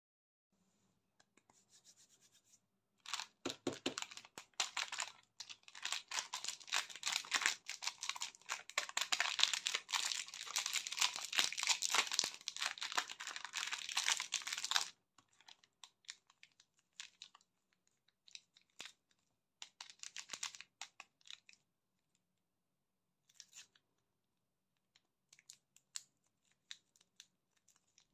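Plastic candy wrapper on a Chupa Chups lollipop packet crinkling and tearing as it is peeled open by hand. The crackling runs dense from about three seconds in to about fifteen seconds, then thins to scattered light crinkles and rustles of the sweet packaging being handled.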